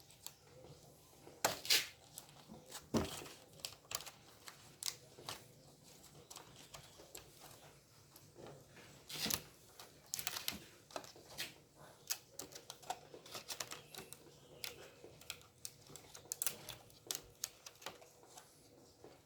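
Irregular handling noises: scattered clicks, taps and short crackles, with a few louder ones about 1.5 to 3 seconds in and again near the middle.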